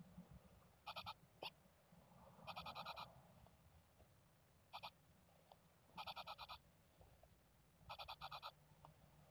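Japanese tits giving faint, buzzy, rattling calls in short bursts, about five of them a second or two apart, over a low steady hum.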